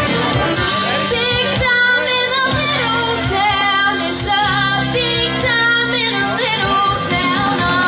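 A woman singing live into a microphone, over instrumental accompaniment with steady held low notes.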